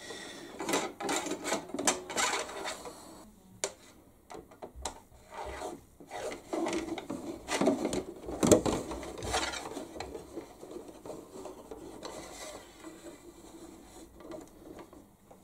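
Thin wire control rod scraping and rubbing as it is pushed and pulled through a small drilled hole in a plastic RC boat hull, with irregular clicks and knocks of handling the hull and rudder arm. The hole is still slightly too tight for the rod to move completely freely.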